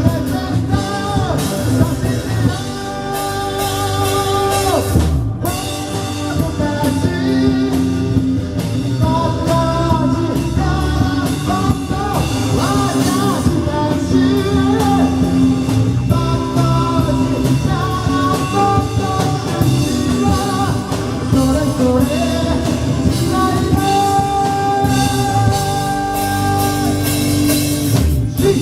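Live rock band performance with sung lead vocals over electric guitar and drum kit.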